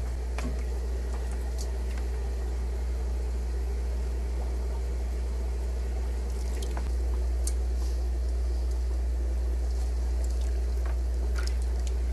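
Steady low hum of aquarium equipment (filters and air pumps) with a faint watery hiss and a few light clicks. The hum changes and gets slightly louder about seven seconds in.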